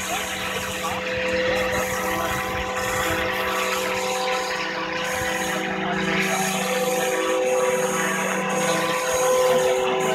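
Scale RC Eurocopter EC145 model helicopter flying, its motor and rotor giving a steady whine that swells slightly as it comes closer near the end.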